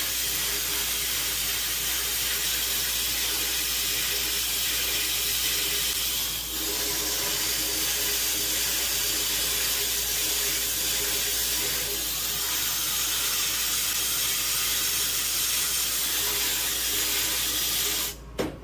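Bead blasting cabinet running: a steady hiss of compressed air driving blasting beads against a 1911 pistol part, which cuts off near the end.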